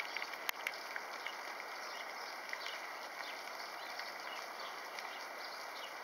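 Steady outdoor hiss with scattered sharp ticks and clicks, a couple of the louder clicks about half a second in.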